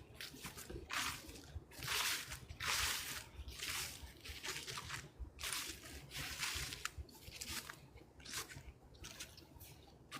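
Footsteps crunching through fallen leaves, about one step a second.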